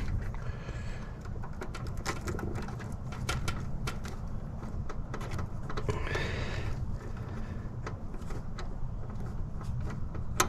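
Scattered light clicks, taps and rustles of hands working wires and terminals in a heat pump's control panel, over a steady low rumble.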